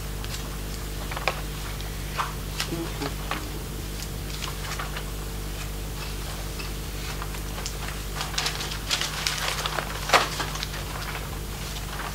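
Sheets of paper rustling and being handled on a table, with scattered small taps and clicks that grow busier in the last third, the loudest tap about ten seconds in. A steady low electrical hum runs underneath.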